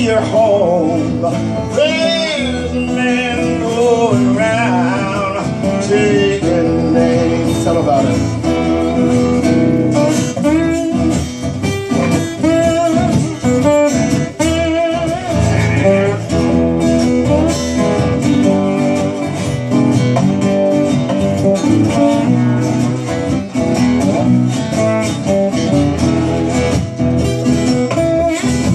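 Two acoustic guitars played together in a blues style, strummed and picked. A wavering melody line with vibrato rides over them through the first several seconds.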